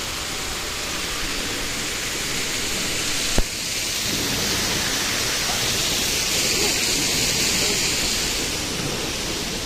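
Steady rushing hiss of an indoor water-wall fountain falling into a pool. A sharp click about a third of the way in, after which the hiss turns brighter and higher.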